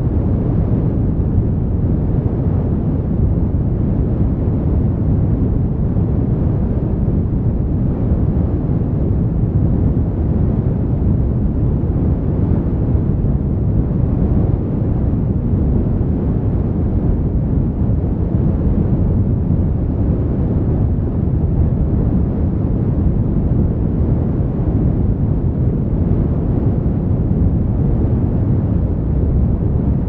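Wind on the microphone: a loud, steady low rumble.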